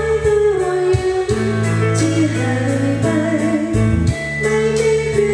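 Live band music: a singer's voice carrying a melody over amplified backing with a steady bass and a regular drum beat.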